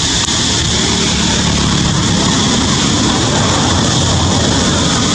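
Steady, loud high-pitched insect drone, with a low rumble beneath it.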